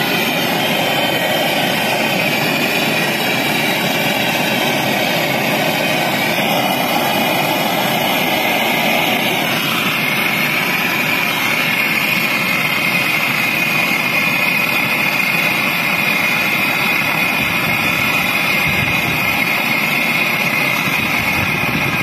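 Handheld gas brazing torch flame burning steadily against copper pipe joints, heating the brazed joints of an air-conditioner filter drier to unsolder it for replacement. The steady noise turns higher-pitched about ten seconds in.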